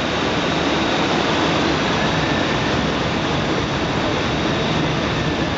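Marine engines of large vessels running steadily at close range: a loud, even drone with a faint high whine over it.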